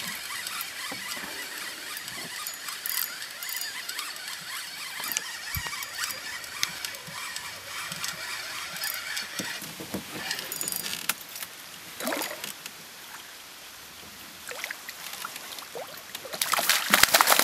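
A fish thrashing at the water's surface, splashing loudly for the last second or so, over a steady hiss for most of the stretch before it.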